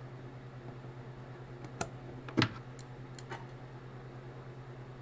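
A few small sharp clicks of a clarinet key and its hinge rod being test-fitted back onto the upper joint after swedging, the loudest about two and a half seconds in, over a steady low hum.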